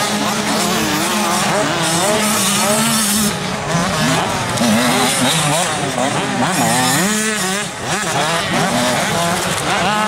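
Several 85cc two-stroke motocross bikes revving hard, their engine pitches rising and falling over one another with throttle and gear changes.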